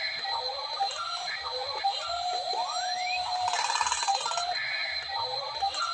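Looping electronic sound effects: rising whoops, short chirps and a steady high beep, the same pattern repeating about every five seconds.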